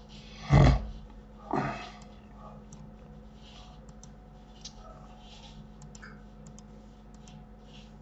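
Computer mouse buttons and keyboard keys clicking, a scattering of sharp single clicks near the microphone. Two short loud rushing noises open it, the first about half a second in and the loudest, the second a second later.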